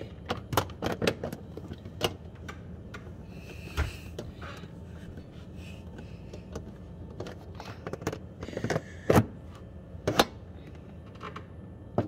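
Plastic light cover of a Sub-Zero refrigerator clicking, knocking and scraping as it is handled and pushed up into its clips, in irregular sharp clicks with the loudest knocks about nine and ten seconds in.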